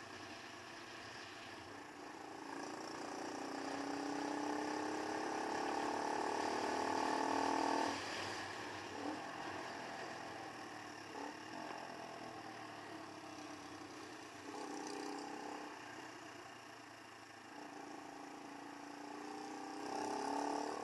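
Keeway Superlight motorcycle engine pulling under throttle, its note rising steadily for several seconds and cutting off sharply about eight seconds in as the throttle closes for a gear change, then rising again in two shorter pulls later on, over steady wind and road noise.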